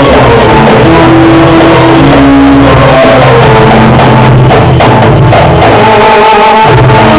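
Live Arabic orchestra music, loud, with a melody of held notes over a steady beat and a run of drum strokes midway.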